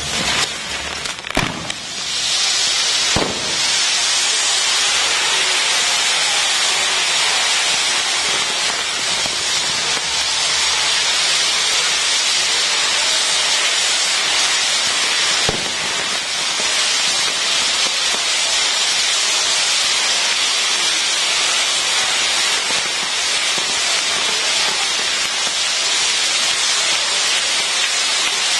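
Ground fireworks on a spinning wheel, their fountains burning with a steady, loud hiss. There are a few sharp cracks in the first few seconds and one more about halfway.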